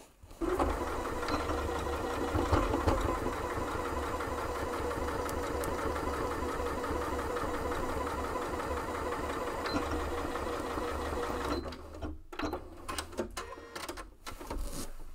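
Electric domestic sewing machine stitching at a steady speed through layers of quilted fabric, running for about eleven seconds and stopping abruptly near the end of the seam. After it stops there are a few short clicks and rustles.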